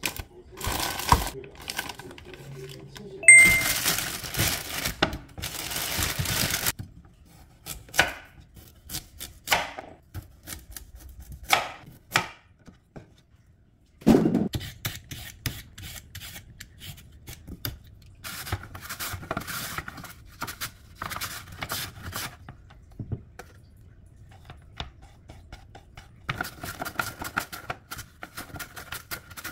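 Plastic grocery packaging crinkling and rustling, with clunks and clicks as packs are handled and set down. About halfway through there is a sudden knock on a wooden cutting board. Near the end a carrot is drawn repeatedly across a hand mandoline slicer, a run of scraping strokes.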